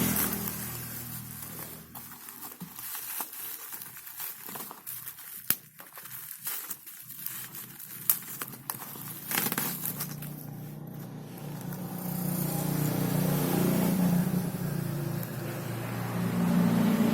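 Plastic packaging crinkling and crackling, with scattered clicks, then from about nine seconds in a motor vehicle engine running and growing louder.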